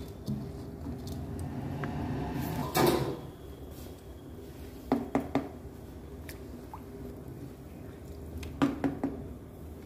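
Soaked rice being scraped from a steel bowl into a pot of broth with a slotted spoon, with a louder scrape about three seconds in, then stirred through the liquid. The spoon knocks sharply on the pan three times about five seconds in and three more times near the end.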